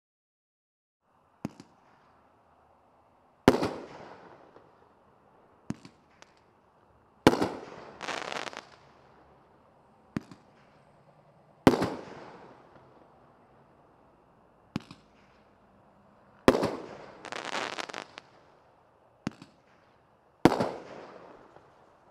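Six-shot 'U.S. Power' consumer fireworks cake firing its shells one by one: five times, a sharp launch pop is followed about two seconds later by a loud shell break that echoes away. The second and fourth breaks are followed by a dense crackling.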